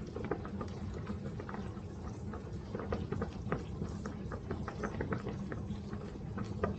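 A person chewing a bite of chicken fried chicken with sawmill gravy: many small irregular wet clicks over a low steady hum.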